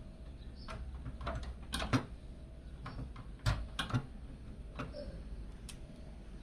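Irregular light clicks and knocks of hard plastic and metal PC case parts being handled, with the loudest knocks about two seconds in and again around three and a half to four seconds in.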